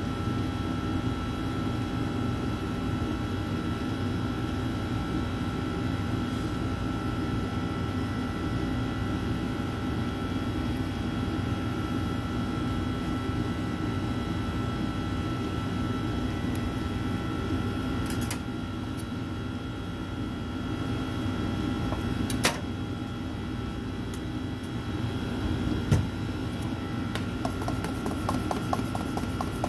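Steady mechanical hum of bakery equipment with a thin, constant high whine. A couple of sharp clicks come in the second half, and a quick run of small ticks near the end.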